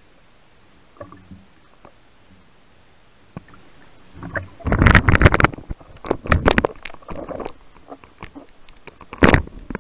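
Muffled water rushing and sloshing around a speargun-mounted camera held just under the surface, in loud rushes about halfway through and once more near the end.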